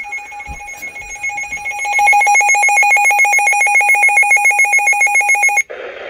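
Weather alert radio sounding its warning alarm: a rapid, loud pulsing two-tone beep, the signal that a warning has been received. It grows louder about two seconds in and cuts off suddenly near the end, as the broadcast audio begins.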